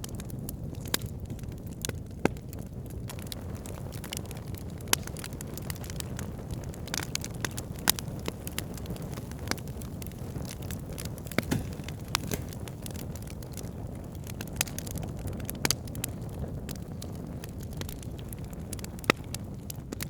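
Wood campfire burning and crackling, with irregular sharp pops over a low steady rumble.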